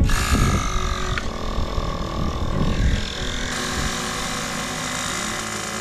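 Small portable air compressor running as it inflates a motorcycle's new inner tube. Its pitch sags a little over the first couple of seconds, then it runs steadily.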